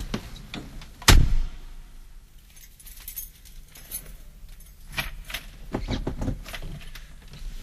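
Sparse clicks, knocks and rattling with one loud thump about a second in, over a low steady rumble, as part of a collage in an experimental noise track.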